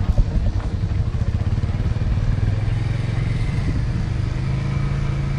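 A vehicle engine running with a low steady hum that rises slightly in pitch about halfway through.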